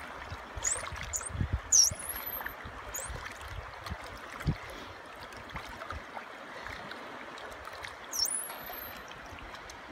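Shallow water washing and trickling steadily at the shoreline. Over it come a few thin, high whistles that dip and then sweep up in pitch, the same shape twice, from the stranded dolphin, along with a few dull low bumps.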